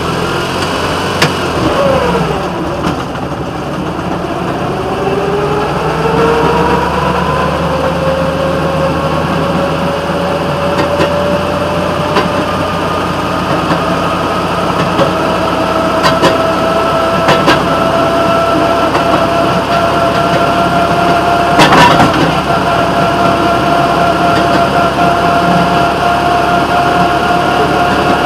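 Railroad motorcar (speeder) running along the track: steady engine and wheel-on-rail noise with a whine that dips, then climbs over the first several seconds as the car picks up speed, and holds steady. Occasional sharp clicks, with a louder clatter about three-quarters of the way through.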